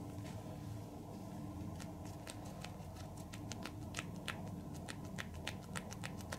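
Quick, irregular light clicks and taps, several a second, thickening from about two seconds in, over a steady low hum.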